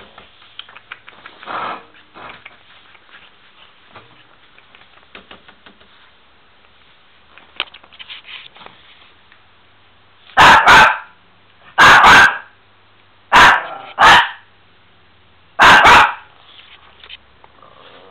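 Miniature pinscher barking: about eight loud, sharp barks over some five seconds, mostly in quick pairs, starting about ten seconds in. Before them there are only faint clicks and scuffles.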